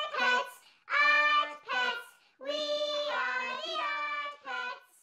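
A high voice singing the intro jingle unaccompanied, in short phrases with brief silent gaps and one longer phrase in the middle.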